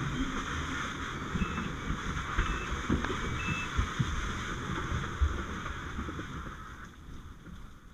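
Fire hose stream spraying with a steady hiss as water rains down, with scattered low knocks and thuds. The spray fades away over the last second or so.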